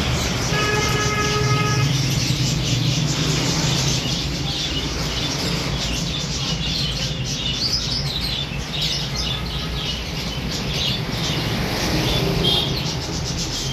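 Birds chirping quickly and continuously over a steady low rumble like traffic. A horn sounds once for about a second and a half near the start.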